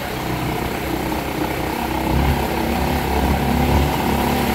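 Motorcycle engine running as it is ridden over a cobblestone road; the low rumble grows louder about two seconds in.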